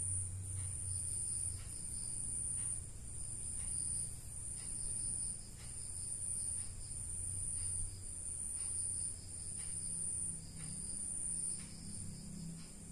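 An insect chirping in high trills, about one a second, over a low steady hum.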